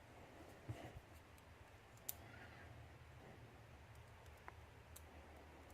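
Faint, sparse clicks of small metal lock parts being worked as pins and springs are pushed out of a disassembled padlock's pin chambers. There are four or five sharp ticks spread over a few seconds, with near silence between them.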